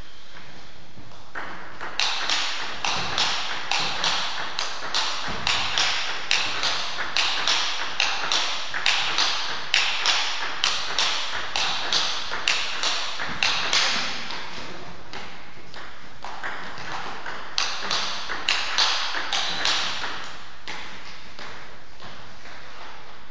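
Table tennis ball knocked back and forth between bats and table in a steady rally of sharp clicks, about two a second. The rally stops after about twelve seconds, and a short second rally follows a few seconds later.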